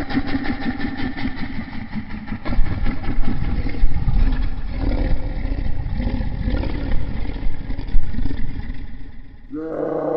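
Made-up Pachycephalosaurus sound effect: a long, rough, rattling growl with a fast pulsing texture. Near the end it gives way to a new pitched bellowing call.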